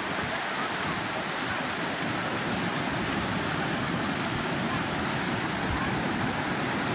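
Steady wash of ocean surf on a beach, an even noise with no distinct events.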